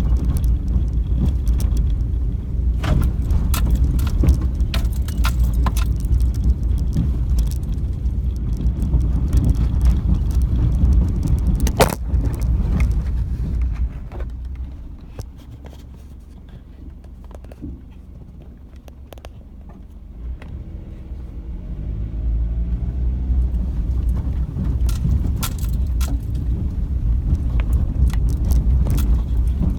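Car driving on a rough dirt road, heard from inside the cabin: a heavy low rumble with loose items rattling and clicking over the bumps. About halfway it goes much quieter for several seconds, then the engine note rises as the car picks up speed again.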